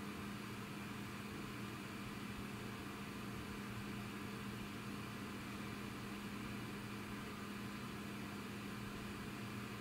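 A steady low machine hum with one strong droning tone and a faint even hiss underneath, unchanging throughout.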